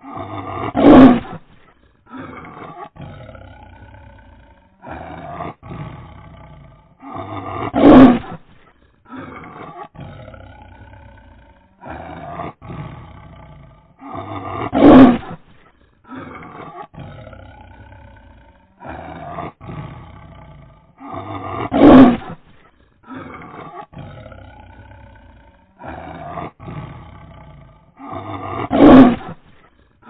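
Tiger roaring: five loud roars about seven seconds apart, with quieter calls between them. The same sequence repeats exactly each time, as a looped recording does.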